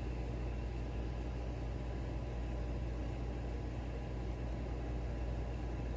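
Steady low hum with an even background hiss, unchanging throughout: room noise from an appliance or ventilation.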